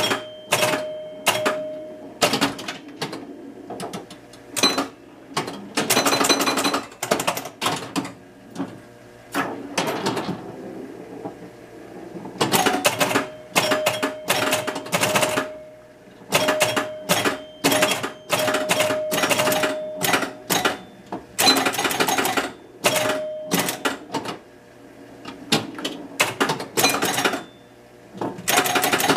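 Williams Fun Fest electromechanical pinball machine in play: pop bumpers firing and score reels and relays clacking in rapid bursts with short pauses, and a held ringing tone several times.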